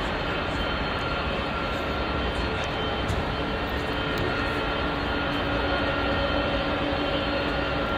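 Four jet engines of an Emirates Airbus A380 at takeoff power as it rolls and lifts off, a steady broad noise with a few faint held tones.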